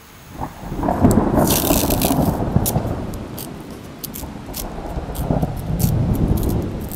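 Sheet of sandpaper being handled, torn and creased by hand: rough scraping and rubbing in two spells, with sharp crackles from the stiff paper.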